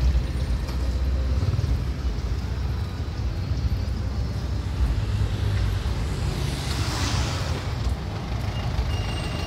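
Road traffic on a busy city avenue: a steady rumble of passing cars and trucks, with one vehicle's tyre hiss swelling and fading as it passes close about seven seconds in.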